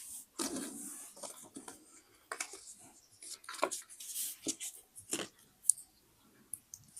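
Paper being handled for scrapbooking: irregular rustling and sliding of paper with short taps and clicks, and one sharp click a little before the end.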